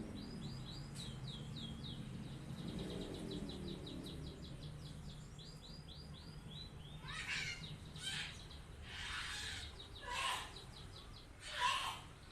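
Male canary singing quietly, a long rolling trill of rapidly repeated high notes for about the first seven seconds. Then come five short, harsh, noisy sounds, the last the loudest near the end.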